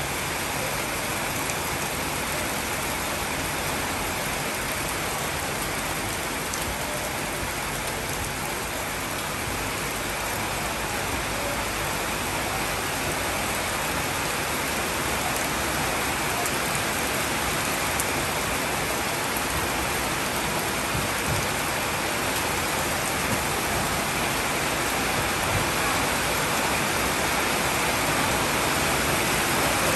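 Steady rain falling on banana leaves, an even hiss that grows a little louder near the end.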